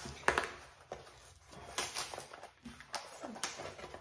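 Brown kraft-paper mailer being torn open by hand along its tear strip. The paper rustles and crinkles, with several sharp crackles.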